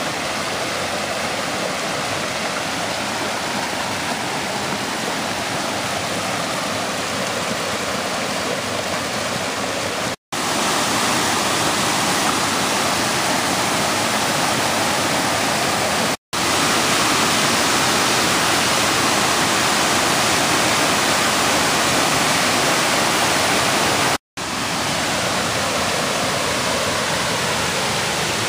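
Waterfall: a loud, steady rush of falling water, broken three times by a brief dead-silent gap where the footage is cut.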